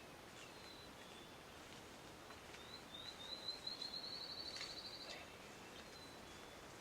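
A songbird singing faintly: a run of short, high, clear notes that speed up and rise slightly into a trill, lasting about two and a half seconds, with a few isolated high chips before and after. A couple of faint clicks come near the end of the song.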